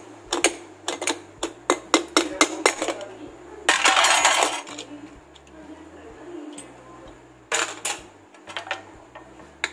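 Quick metal clinks of utensils, then about four seconds in a short hiss of leftover steam escaping as an aluminium pressure cooker of dal is opened. A couple of metal clanks near the end as the lid comes off.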